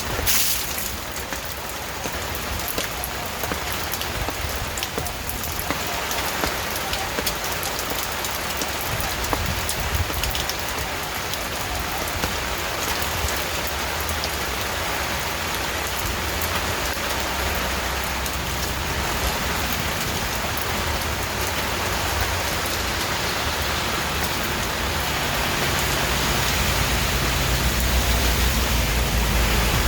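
Steady rain falling on a surface, with scattered drops pattering. A low rumble builds near the end.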